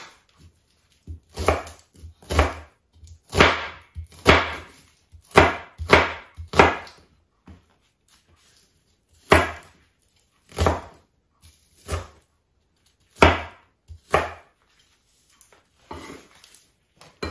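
Kitchen knife chopping an onion on a wooden cutting board: a series of separate sharp chops, roughly a second apart, with a pause in the middle.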